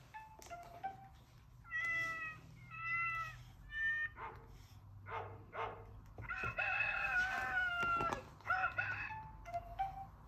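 Recorded farmyard animal calls played through a children's sound book's small speaker, one call after another: cat meows, and about six seconds in a long rooster crow.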